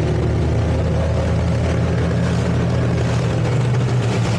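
Twin outboard motors on a towboat running steadily under power, a low engine drone over a constant rush of wind and churning water.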